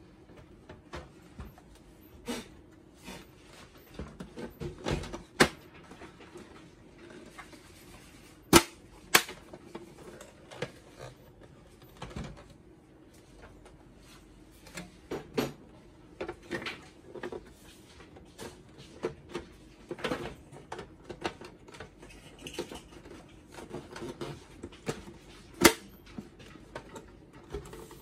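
Irregular plastic clicks, taps and snaps from a Zebra ZC100/300 card printer's housing and side covers being handled and pressed into place, with a few sharper snaps, the loudest about eight and a half seconds in and again near the end.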